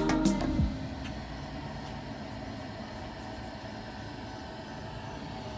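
Background music that stops less than a second in, followed by a steady machine-like hum with a faint thin whine.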